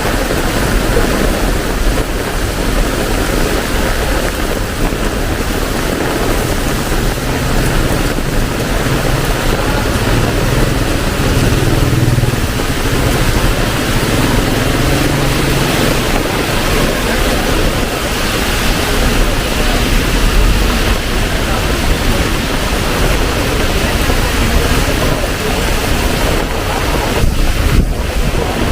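Heavy rain pouring steadily, a dense even hiss. A low vehicle engine hum joins it for several seconds about a quarter of the way in.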